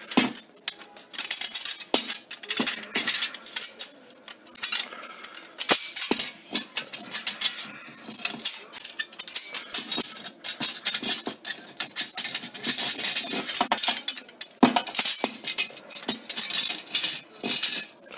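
Quick-Step Incizo aluminium threshold profile being twisted and handled while its side strips are snapped away: many irregular metallic clicks, rattles and scrapes.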